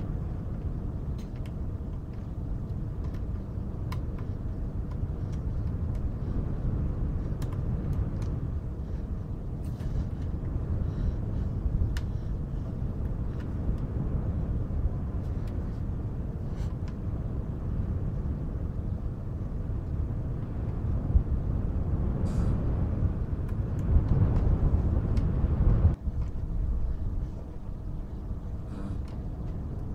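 A steady low rumble of wind and white noise, swelling for a couple of seconds near the end and then dropping suddenly. Faint, scattered clicks of cardboard jigsaw puzzle pieces being tapped and sorted sound over it.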